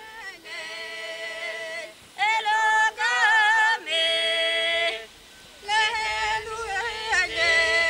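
Unaccompanied singing: voices holding long notes that waver and bend in pitch, in phrases broken by short pauses. The singing grows louder about two seconds in.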